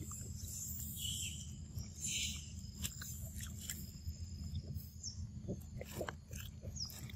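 Macaques biting and chewing ripe mango close by: scattered wet clicks and smacks of eating over a steady low rumble.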